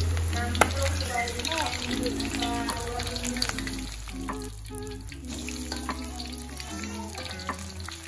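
Battered pieces deep-frying in hot oil in a wok, with a steady bubbling sizzle, and a single sharp tap about half a second in. Background music plays over it.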